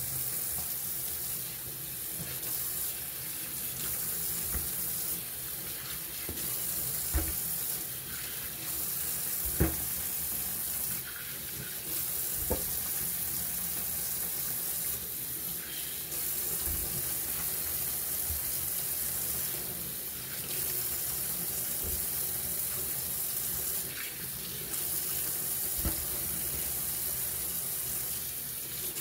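Kitchen faucet running into a stainless steel sink, the stream splashing over hands as raw oxtail pieces are rinsed and dropped into a bowl. A few light knocks come from the handling, about seven, ten and twelve seconds in.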